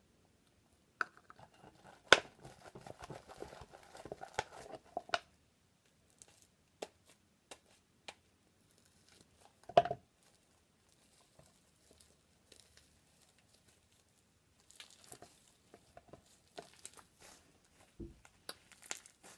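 Hands pulling sticky fluffy slime out of a plastic cup and kneading it. A few seconds of dense crackling come first, then one louder short knock about halfway through, then scattered soft clicks as the slime is worked between the fingers.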